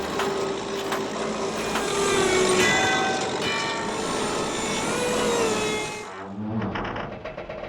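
Cartoon construction machinery running, a loud noisy din with some whistling tones. About six seconds in it gives way to quieter rattling and low creaking.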